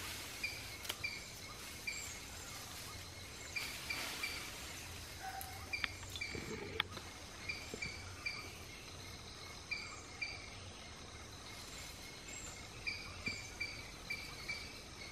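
Forest ambience: a high chirping call repeated in short runs of two to four notes all through, with a brief rush of noise about four seconds in and a couple of sharp clicks around the middle.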